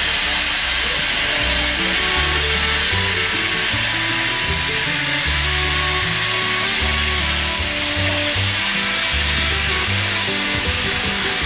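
Steady loud hiss of steam venting from NSWGR C38 class Pacific steam locomotive 3801, under background music whose low notes are held and step from one to the next.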